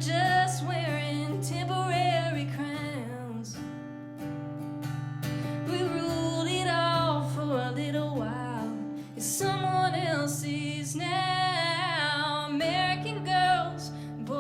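Live acoustic song: a voice sings a melody over acoustic guitar, with held low notes underneath.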